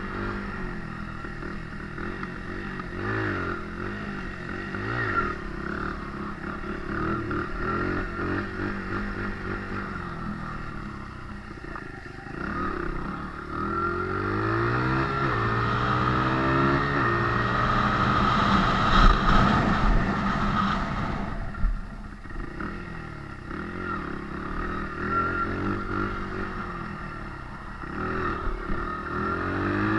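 Honda CRF dirt bike's four-stroke single-cylinder engine running and revving up and down while being ridden. Around the middle the pitch sweeps up several times as it accelerates through the gears, and it is loudest about two-thirds of the way in.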